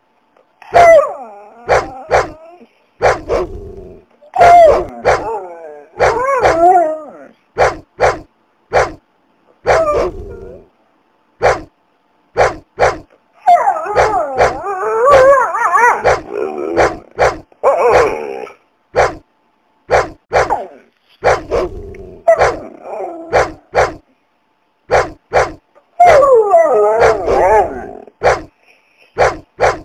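Dogs barking in rapid, short, sharp barks, broken up by longer wavering cries where several dog voices overlap.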